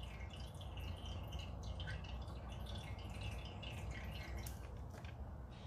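Faint dripping and trickling of engine oil from a mower's drain tube into an empty plastic oil jug as the crankcase drains.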